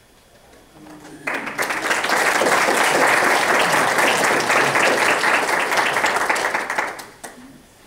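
Audience applauding. The clapping starts about a second in, holds steady, and dies away near the end.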